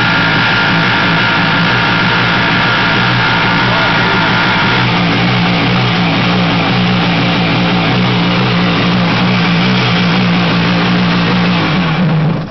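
Kawasaki JS550 jet ski's two-stroke twin engine running steadily, with a high ringing tone over it for about the first five seconds: the loud pinging that the owner suspects is pre-ignition or piston vibration from the top end or carburettor. The engine cuts off just before the end.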